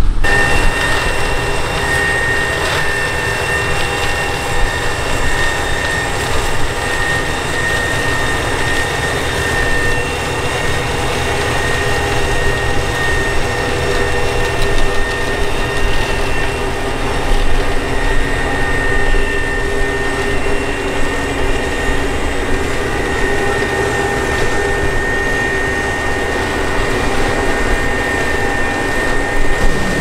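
Tractor and trailed potato harvester running steadily: engine rumble with a steady high-pitched whine on top.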